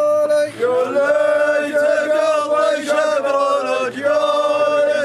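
Male voice chanting an Arabic wedding song in long, held notes that bend up and down, joined by a second layer of voices about a second in.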